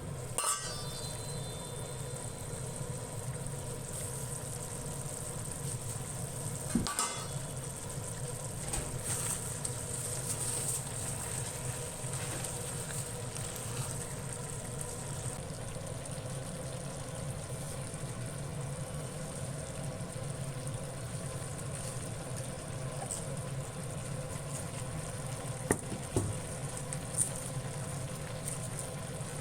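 Potatoes and chicken sizzling as they stir-fry in a pan, over a steady low hum, with a few short knocks about seven seconds in and again near the end.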